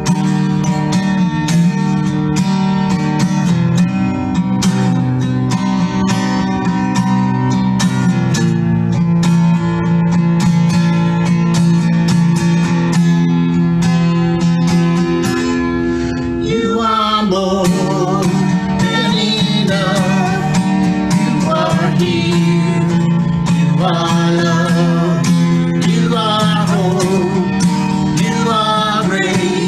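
Takamine acoustic guitar strummed in steady chords as an instrumental lead-in; about halfway through, a woman's voice starts singing along.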